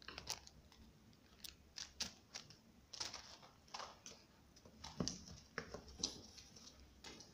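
Irregular soft clicks, scratches and rustles close to the microphone as a pet squirrel moves about on a blanket and the camera is handled, with a few sharper clicks about three, five and six seconds in.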